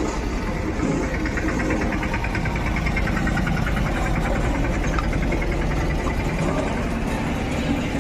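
An engine idling steadily with a low hum throughout.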